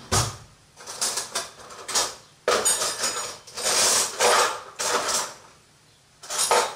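Kitchen utensils and containers being handled: a series of clinks, knocks and scraping noises, with a short lull near the end.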